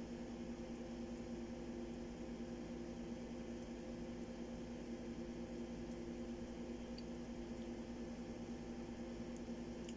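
Steady low hum of a small motor, with a few faint small clicks over it.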